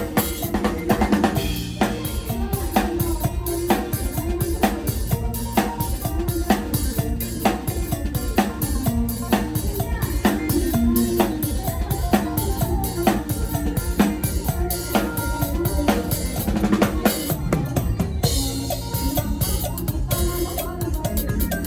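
Drum kit playing a steady, driving mor lam (lam phloen) groove, with kick, snare and rimshots, inside a full band with bass and melody instruments.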